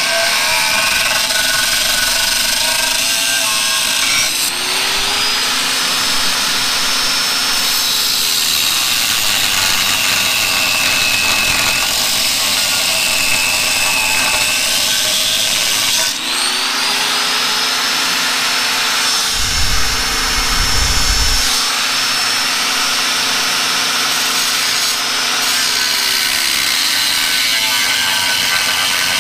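Chicago Electric angle grinder with a cut-off disc cutting through the tractor's sheet-steel frame, its motor whine rising and falling in pitch as the load on the disc changes. A few seconds of low rumbling come about two-thirds of the way through.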